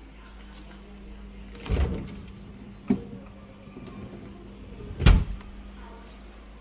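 Refrigerator door shut with a thud twice, about three seconds apart, with a sharp click between, over a steady low hum.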